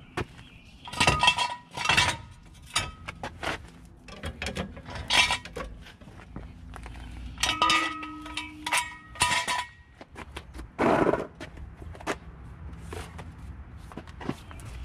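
Metal tools and parts clinking: a series of sharp metallic knocks, several of them ringing briefly, with one longer, noisier scraping sound about eleven seconds in.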